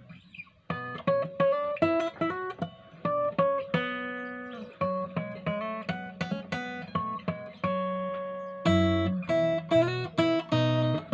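Martin DX1 acoustic guitar with a solid spruce top, played in a tone test. After a chord dies away, it plays a quick run of single plucked notes starting just under a second in, with a fuller low chord near the end.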